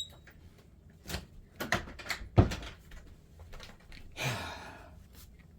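Handling noise from objects being put away: a few sharp knocks and clicks, the loudest about two and a half seconds in, then a short rustling scrape about a second long.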